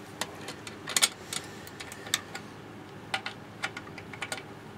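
Irregular sharp metallic clicks and taps as the nuts fixing an aluminium router-table fence to an Incra LS positioner are tightened. A cluster of several clicks comes near the end.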